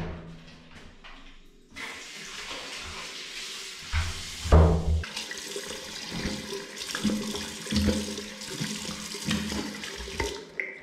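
Water running from a bathroom sink tap, turned on about two seconds in, with uneven splashing as a face is washed under the stream.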